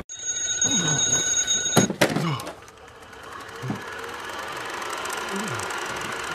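Twin-bell alarm clock ringing for nearly two seconds, then stopping with a couple of sharp knocks.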